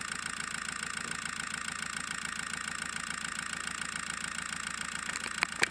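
OMC-3 Froment twin-coil electromagnetic model engine running steadily, its flywheel contacts switching the coils with a rapid, even ticking; it is running well, its contacts no longer catching on the coils. A couple of louder clicks near the end.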